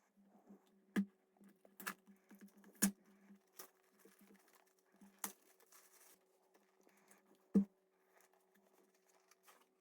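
Handling of a cardboard keyboard box as it is being opened: scattered light taps and knocks, about half a dozen, with quiet between them.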